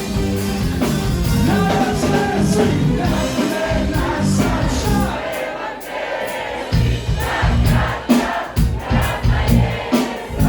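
Live pop-folk band music with singing and crowd voices. About halfway through the bass and drums drop away for a moment, then a strong beat of about two thumps a second comes back in.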